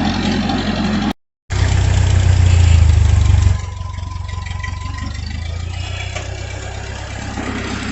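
Farm tractor engine running steadily, cutting out to silence for a moment about a second in, then running louder for a couple of seconds before settling to a quieter idle.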